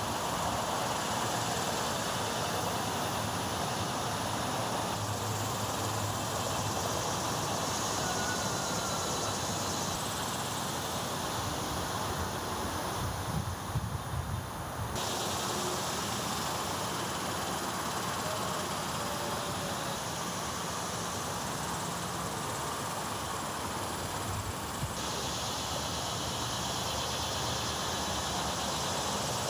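Steady outdoor night ambience: a constant high hiss of insects over a low hum of distant traffic, the mix shifting abruptly a few times where the footage cuts.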